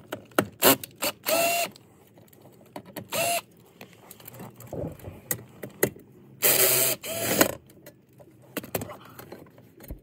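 Cordless drill-driver spinning in three short bursts, the last about a second long, backing out bolts. Scattered clicks and knocks of the tool and parts being handled come in between.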